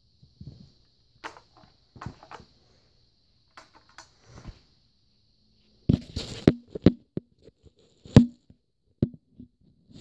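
Scattered clicks and knocks from handling a Bissell stick vacuum's power cord and plastic parts: light taps in the first half, a quick cluster about six seconds in, and one louder knock just after eight seconds. The vacuum motor is not running.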